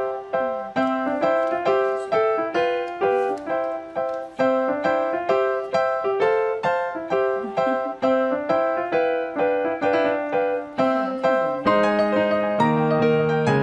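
Background piano music: a melody of evenly paced struck notes, about three a second, with lower bass notes joining near the end.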